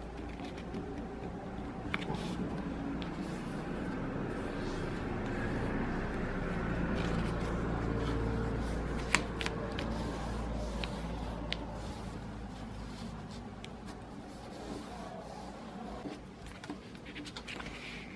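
A square sheet of origami paper rustling and crinkling as it is folded and creased by hand, with scattered sharp crackles, over a steady low rumble.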